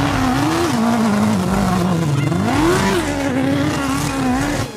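Off-road buggy engine revving hard, its pitch rising and falling several times as the buggy is thrown around on a dirt track.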